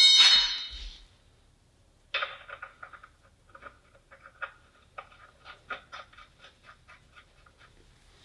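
The ringing of a steel pry bar that has just clanged down on a concrete floor, dying away within the first second. After a short pause, a run of light, irregular metallic clicks and taps, several a second, to the end.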